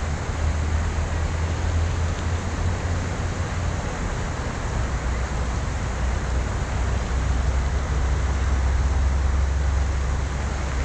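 Steady rushing noise of a shallow river flowing, with a heavy low rumble of wind on the microphone.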